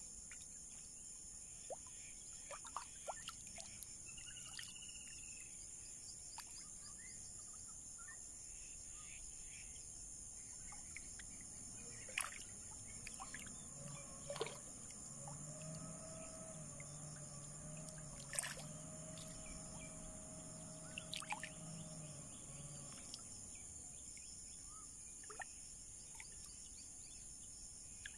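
Faint outdoor ambience by the water: a steady high insect drone, one short bird call early, and scattered small clicks and ticks. A low drone comes in about halfway through and fades out several seconds later.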